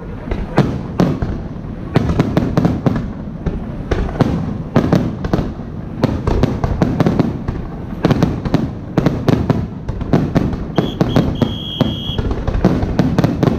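Aerial firework shells bursting in quick succession: a dense run of sharp bangs and crackles, several a second.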